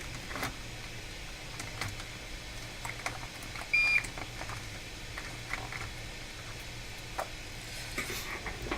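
A single short electronic beep about four seconds in, over a steady low hum and faint scattered clicks.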